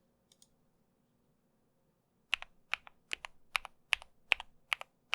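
Mechanical keyboard fitted with Akko ASA-profile PBT doubleshot keycaps, keys pressed one at a time at a steady pace of about two to three a second from a little after two seconds in. Each stroke is a sharp click pair of bottom-out and release.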